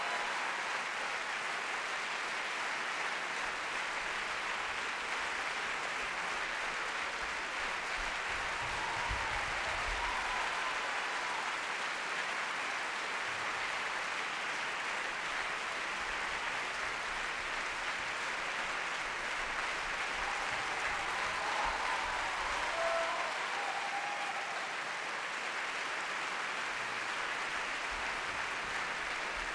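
Theatre audience applauding steadily in a long ovation, with a few faint calls rising over it about ten seconds in and again past twenty seconds.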